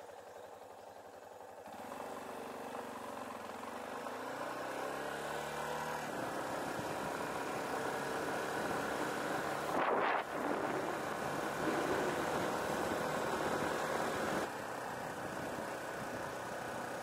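Yamaha Serow 250's air-cooled single-cylinder engine idling, then pulling away with its pitch rising as it accelerates. It then runs steadily under way with wind and road noise. A brief loud rush of noise comes about ten seconds in.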